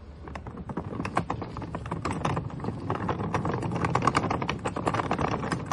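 Hard caster wheels of a moving dolly clattering over paving stones as it is pulled along, a fast irregular run of clicks and knocks that grows louder.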